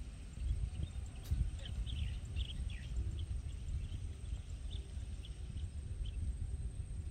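Wind rumbling on the microphone, with faint, scattered bird chirps.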